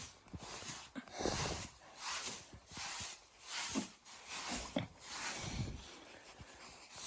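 A dog breathing in short noisy puffs, about one a second.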